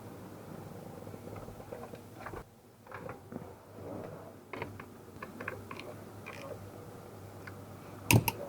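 Scattered clicks and knocks of hand tools and parts being worked during steering-wheel refitting on a car's steering column, with a loud cluster of knocks near the end.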